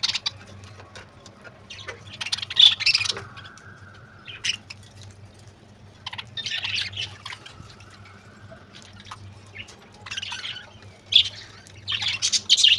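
Caged budgerigars chattering and squawking in short bursts. Water is poured and sloshed twice as small plastic water pots are rinsed out.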